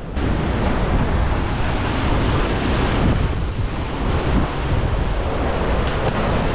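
Sea surf breaking and washing over rocks, with wind buffeting the microphone.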